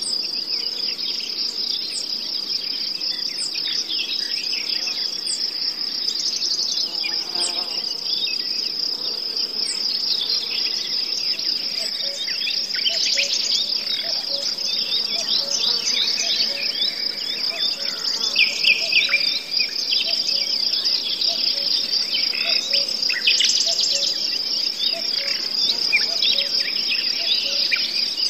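Steady, high-pitched insect trilling, typical of crickets, with many short high chirps scattered over it.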